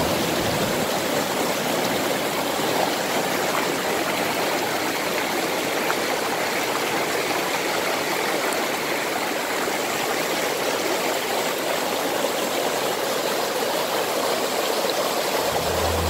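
Shallow mountain stream rushing over granite boulders and small rapids: a steady, even rush of water.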